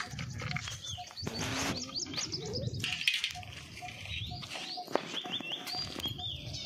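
Several birds chirping and whistling, with many short rising and falling calls overlapping throughout.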